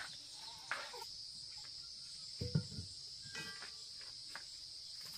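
Steady high-pitched chorus of insects, with a few short knocks and clatters over it, the loudest about two and a half seconds in.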